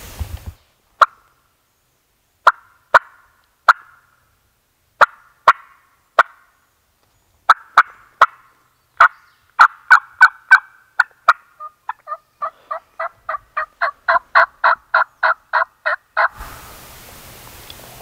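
Hen turkey calling: sharp single clucks, sparse at first and coming faster, then a fast run of yelps, about four a second, that stops suddenly.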